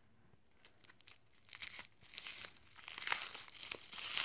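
Clear plastic wrapping around a spool of thread crinkling as it is handled in the fingers. It is faint at first and grows into a dense crackle from about a second and a half in.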